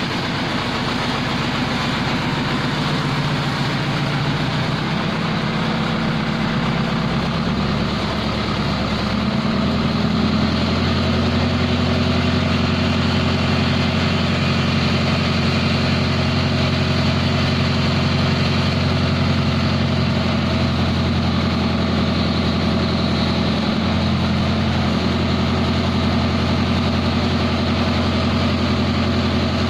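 Diesel engine of a JCB mobile hydraulic crane running steadily. About nine seconds in it speeds up and grows louder, holding the higher speed while the crane lifts a transformer on its hook.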